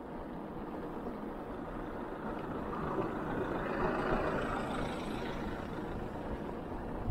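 Steady rush of wind and tyre noise from riding a loaded touring bicycle, swelling louder for a couple of seconds about midway.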